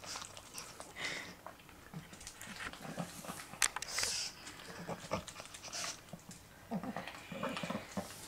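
A pug licking up yogurt: irregular wet licking and lip-smacking clicks with short noisy breaths through its flat nose, and one sharper click about three and a half seconds in.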